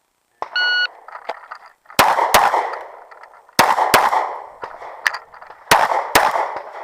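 A shot-timer start beep sounds about half a second in as one short steady tone. Then come pistol shots in three quick pairs, the two shots of each pair about a third to half a second apart, each shot followed by a trailing echo.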